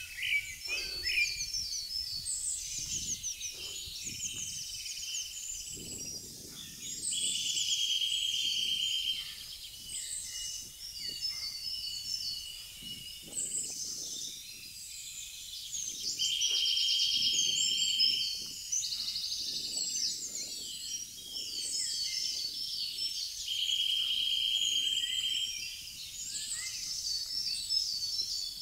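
Several songbirds singing at once, their phrases overlapping. One bird repeats a long, rapid trill of about two seconds, three times.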